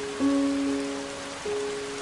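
Soft instrumental background music: held notes, a new one coming in twice, over a steady hiss.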